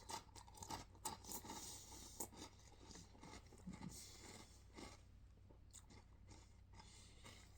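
Faint, irregular crunching and chewing of a mouthful of sweetened corn cereal balls in milk.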